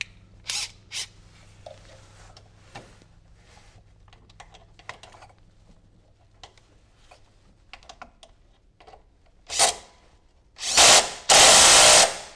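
Light clicks and rattles of a mower belt and pulleys being handled, then a Ridgid 18-volt cordless driver running on an idler pulley's centre bolt in short bursts near the end, the last and longest about a second.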